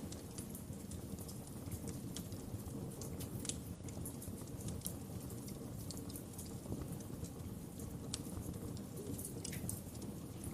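Wood fire crackling in a fireplace: a steady low rumble of flames with scattered sharp pops and crackles.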